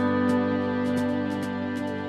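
Background music: soft instrumental with sustained held tones and a light ticking beat.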